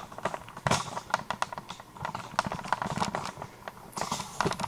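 Close handling noise: irregular light clicks and taps of objects being moved about near the microphone, several a second, busiest in the first and middle parts.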